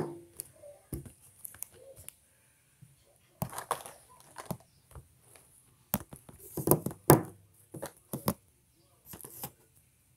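Handling noise from a phone held close to its microphone: irregular rubbing, rustling and knocks, with a cluster of louder scrapes about two-thirds of the way through.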